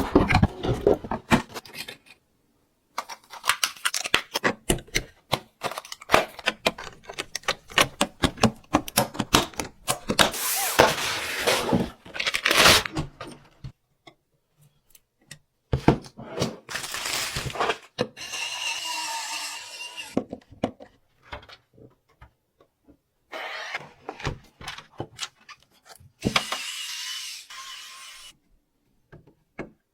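Quick clicks, snaps and knocks of computer parts being handled and fitted together during a PC build, with a few stretches of rustling or scraping lasting a second or two.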